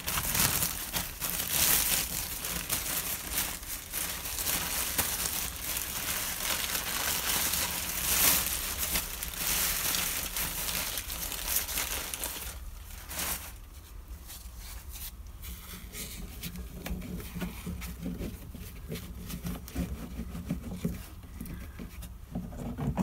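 A plastic bag crinkling as a hand rummages in it for about the first thirteen seconds. After that come quieter handling noises and small clicks as a sponge piece is pressed into place on the glass grinder.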